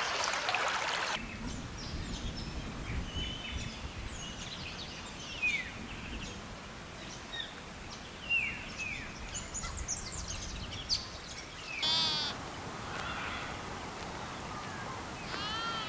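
Trickling water that cuts off about a second in, then small birds chirping in short falling notes over a low rumble. Near the end a sheep bleats twice with a wavering call.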